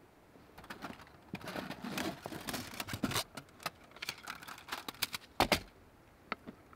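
Light clicks, rattles and knocks of hands handling small camp gear around an aluminium mess tin, with a sharper clack about five and a half seconds in.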